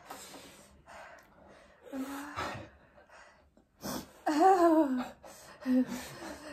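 A person gasping and sucking in air through the mouth, then drawn-out wavering whimpering cries about four seconds in, a reaction to the burn of very spicy ramen.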